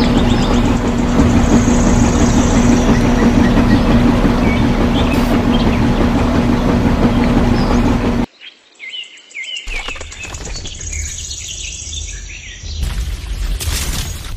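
Small electric motor of a model concrete-mixer tractor running with a steady hum, which cuts off abruptly about eight seconds in. After that, birds chirp over a quieter outdoor background.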